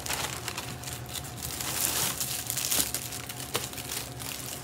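Packaging crinkling and rustling as a parcel is opened by hand, with many small sharp crackles; it is a little louder about two seconds in.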